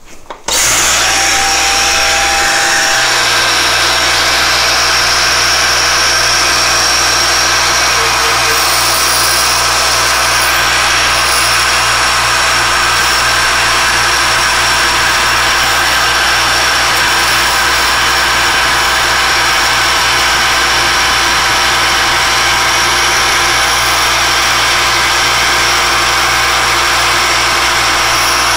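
Alexander Model 3A pantograph engraving and milling machine running steadily, its spindle and cutter milling the outer edge of a watch dial chapter ring in metal sheet. The sound comes in abruptly about half a second in and stays even.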